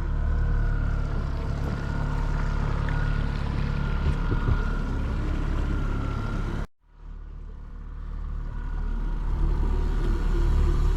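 Motorboat engine running steadily underway, a loud low rumble with a constant hum. About two-thirds of the way through it cuts off abruptly, and a similar rumble fades back up.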